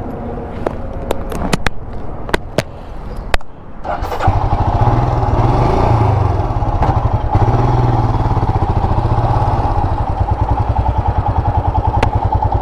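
A few sharp clicks, then about four seconds in a motorcycle engine starts and settles into a steady idle with an even, rapid pulse.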